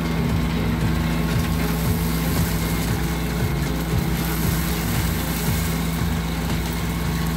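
Vactor 2100 combination vacuum truck running with a steady, unbroken drone while its suction hose is lowered into the catch basin.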